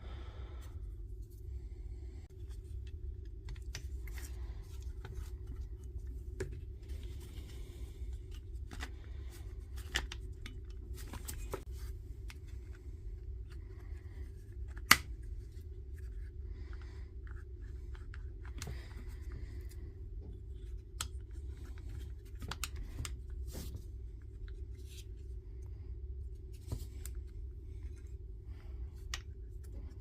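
Small clicks, scrapes and rustles of hands working on the plastic housing and switch parts of a cordless angle grinder, with one sharper click about halfway through, over a steady low hum.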